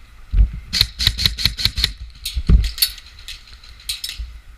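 Airsoft guns firing: strings of sharp clicking shots, about seven a second, in several bursts, with low thumps underneath.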